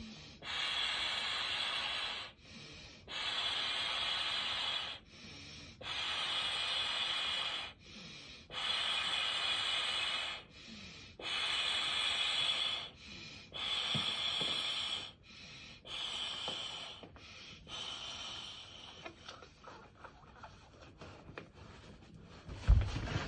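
Sleeping pad being blown up by mouth: about seven long, hard breaths into the valve, evenly spaced with short pauses, growing weaker and ragged toward the end, then a sharp thump.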